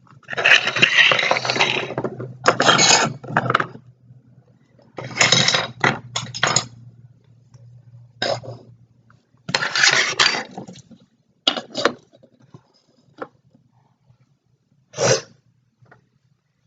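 Small plastic toys and accessories being handled, clattering and scraping against a hard surface in irregular bursts, some up to about two seconds long, others short knocks.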